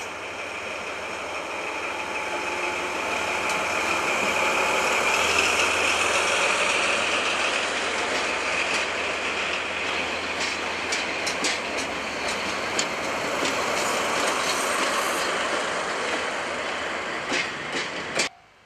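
A red DE10-type diesel locomotive passes close by with its engine running, loudest about five seconds in. The coach it hauls follows, rolling past with a string of sharp wheel clicks over the rail joints. The sound cuts off suddenly near the end.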